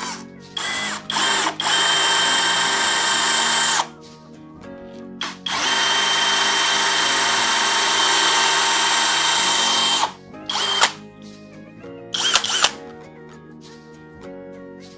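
DEKO 20V cordless brushless drill boring into the end of a wooden strip: a couple of short blips of the trigger about a second in, then a run of about two seconds, a pause, and a long run of about four and a half seconds, followed by two brief bursts.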